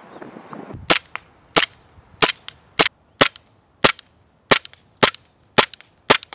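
KWA M93R gas blowback airsoft pistol fired about a dozen times in steady succession, a sharp crack roughly every half second to second, starting about a second in.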